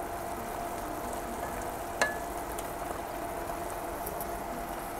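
Tuna, tomato and onion sizzling and simmering in a little liquid in a non-stick wok, stirred with a wooden spatula, with a single sharp tap of the spatula on the pan about two seconds in.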